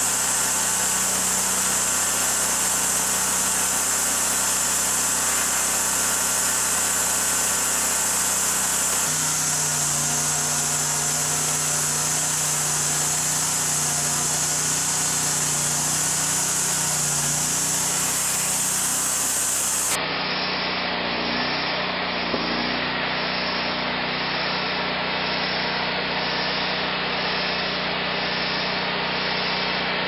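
Band sawmill running and cutting through a log: a steady engine drone under the high hiss of the blade in the wood. The sound changes abruptly twice, about a third and two-thirds of the way through, and is duller after the second change.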